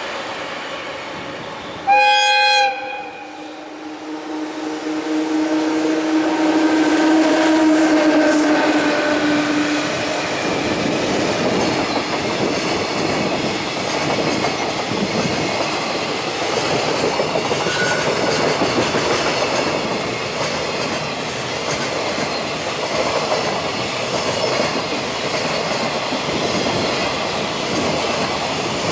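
JR Freight EF66 electric locomotive giving one short, loud blast of its horn about two seconds in, a signal to a track lookout, then a steady tone as it passes. The long train of container wagons then rolls past with a continuous rumble and clickety-clack.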